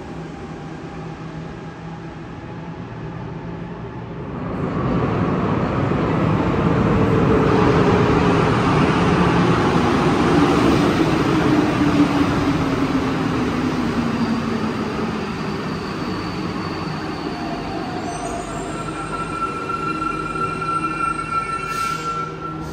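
Alstom metro train running through the station: a loud rush of train noise builds about four seconds in, carrying a motor whine that slides steadily down in pitch. Near the end, several high steady tones take over as the noise eases.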